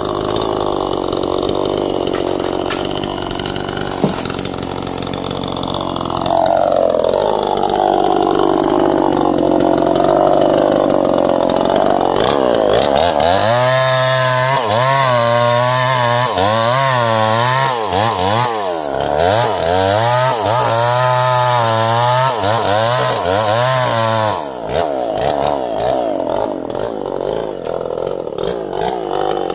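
Two-stroke chainsaw running and cutting wood, its engine pitch repeatedly dropping and rising as it loads in the cut, most strongly through the middle, then easing near the end.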